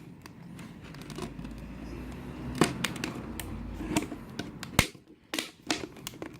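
Thin plastic bottle crackling and snapping as a blade cuts through it, in irregular clicks with a few sharper snaps, over a low rumble of handling noise in the middle.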